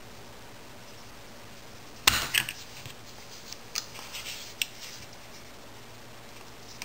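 Pliers and a small metal bending jig clacking as they are handled: one loud metallic clack about two seconds in, then a handful of lighter clicks and ticks.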